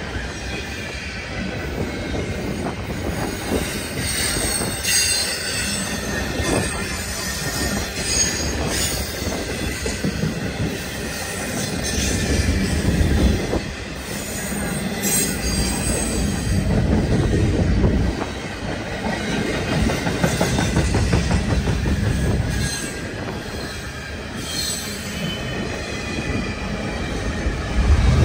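CN double-stack intermodal freight train's container well cars rolling past close by: a steady rumble and clatter of steel wheels on rail, with a thin high wheel squeal over it.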